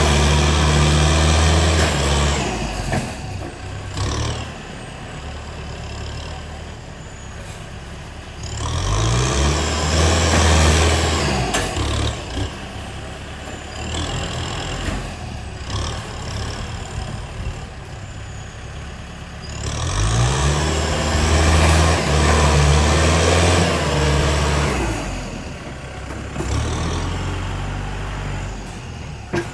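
Heavy diesel engine of earthmoving machinery working in cycles: about three times, it revs up with a rising pitch, runs hard under load for a few seconds, then drops back to a quieter running.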